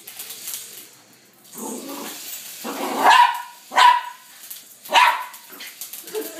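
Small poodle barking at a toy helicopter: some quieter sounds about two seconds in, then three loud, sharp barks about a second apart in the second half.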